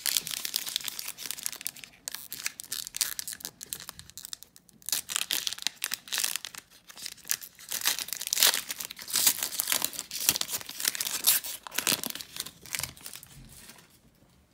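Foil wrapper of a trading-card pack crinkling and tearing as it is ripped open by hand: a dense crackle with short pauses that dies away near the end.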